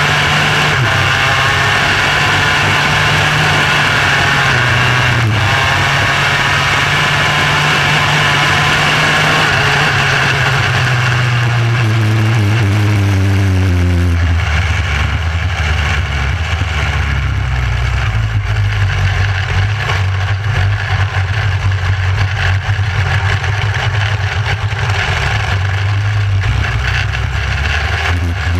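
Micro sprint car's motorcycle engine heard from the cockpit, running at high revs, then falling in pitch over a few seconds about halfway through and carrying on at a lower, rougher note, picking up slightly near the end.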